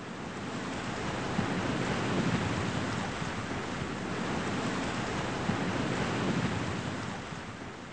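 A steady rush of water like waves washing, swelling and easing slowly and fading out near the end.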